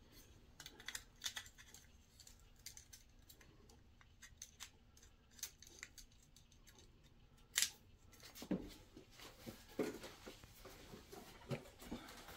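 Faint small clicks and rustles of hands working plastic lamp holders and their wires onto a fluorescent fixture's end bracket, with one sharper click about seven and a half seconds in and a few soft knocks after it.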